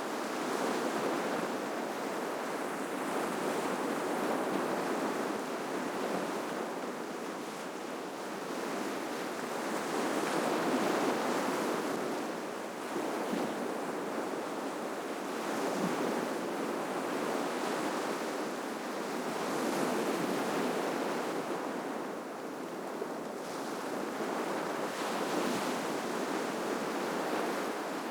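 Ocean waves breaking and washing onto the shore, a continuous surf that swells and ebbs every few seconds as each wave breaks.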